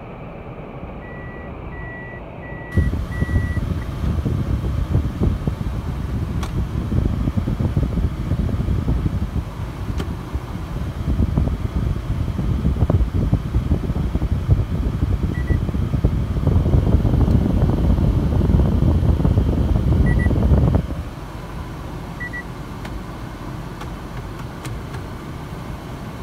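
Car cabin sound: four short electronic beeps as the automatic gear selector is moved, then from about three seconds in a loud low rumble of the car under way, which drops back to a quieter steady hum about 21 seconds in. A few faint single and double beeps come later.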